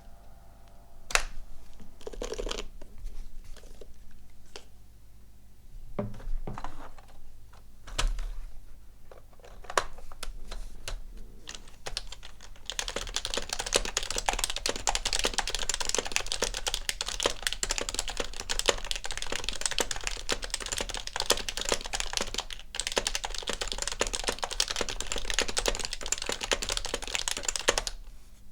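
Topre-style keyboard being typed: a few scattered keystrokes for the first dozen seconds, then fast, continuous typing until just before the end.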